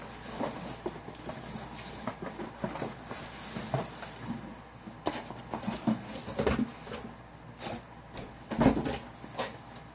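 Cardboard shoebox being worked out of a shipping box: rustling and scraping of cardboard and paper with scattered knocks, and a louder thump near the end.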